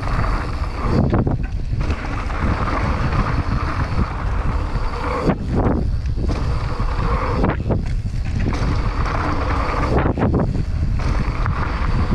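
Wind rushing over the camera microphone as a mountain bike rolls fast down a dirt trail, with the tyres' crunching roll on loose dirt underneath. The rush is steady and loud, dropping away briefly about four times.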